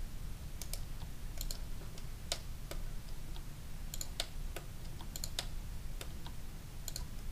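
Irregular clicks of a computer keyboard and mouse, about fifteen in all, some in quick pairs, over a faint steady low hum.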